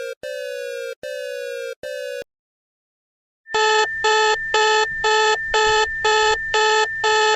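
Electronic alarm tones: a few short tones that each fall slightly in pitch, then after a second of silence a louder alarm beeping about twice a second over a steady high whine.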